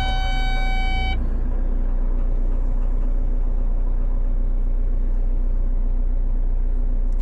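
Cat 320 excavator's diesel engine running steadily with a low, even drone. A steady high tone sounds for about the first second, then cuts off.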